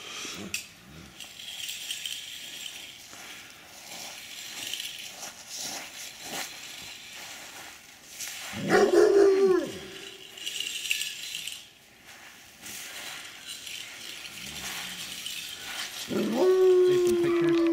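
A dog howling twice: a short howl about eight and a half seconds in, and a longer, steady one near the end.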